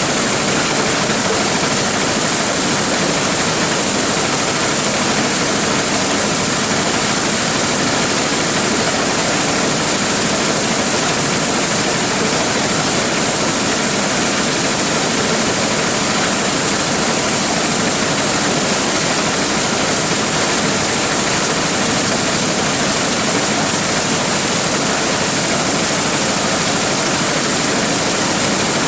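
Large corn sheller (threshing machine) running steadily: a loud, even mechanical noise with a strong high hiss.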